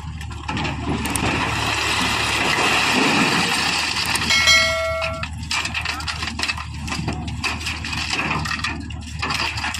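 JCB 3DX backhoe loader's diesel engine running under load with a steady low hum, over a rushing noise that builds through the first half. A single held high-pitched tone sounds for about a second roughly halfway through.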